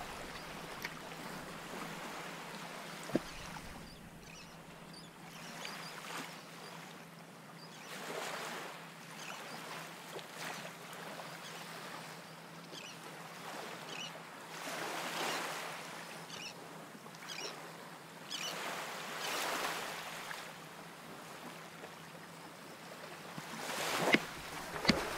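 Small waves lapping in shallow seawater, swelling and easing every few seconds, with a light rush of wind. A couple of sharp clicks near the end.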